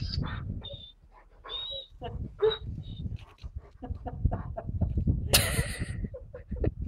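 Animal calls: short high chirps that repeat about once a second, among scattered soft knocks, with a brief hissing noise about five seconds in.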